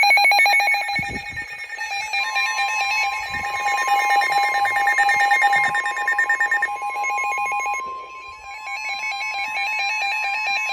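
Several NOAA weather radios sounding their alert alarms together, rapid electronic beeping on several pitches. About two seconds in, a steady single-pitch tone joins and holds to the end: the broadcast's 1050 Hz Warning Alarm Tone, which marks a warning-level alert.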